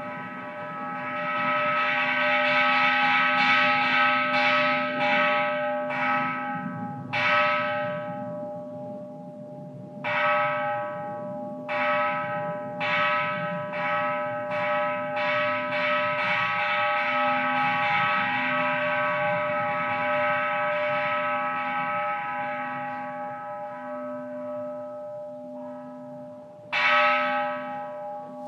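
Japanese Buddhist temple bell (kanshō) struck over and over, in runs of quick strokes, each stroke ringing on into the next, with a louder single stroke near the end.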